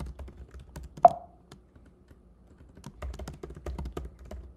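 Typing on a computer keyboard in two quick flurries of key clicks, with one louder knock about a second in.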